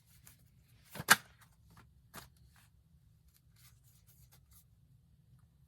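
Tarot cards being handled and laid down: a sharp snap about a second in, a lighter one about two seconds in, then faint light ticks of the cards.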